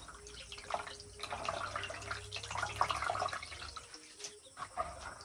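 Hands washing goat offal in a basin of water: irregular sloshing and splashing as the pieces are rubbed and turned, then dripping as washed pieces are lifted out. The splashing is busiest in the first three seconds or so and thins out near the end.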